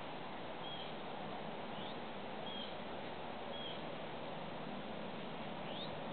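Steady outdoor background hiss with a bird giving short high chirps every second or so, a couple of them quick upward sweeps.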